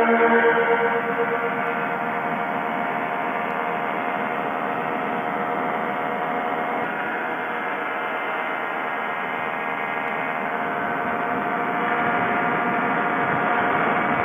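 Quicksilver ultralight's engine running steadily at full throttle through the takeoff run and climb-out, an even droning tone with propeller and wind rush beneath it.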